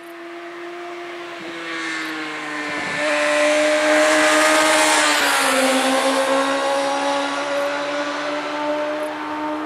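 A sport motorcycle engine passes on a race track at speed. It grows louder as it approaches, is loudest for a couple of seconds, then drops slightly in pitch about five seconds in and fades as it rides away.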